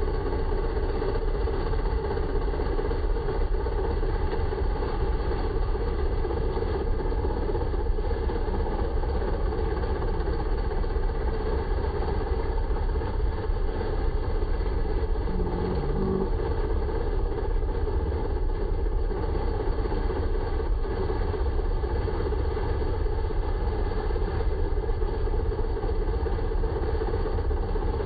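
Tractor engine idling steadily, an even mechanical running with no revving or stopping.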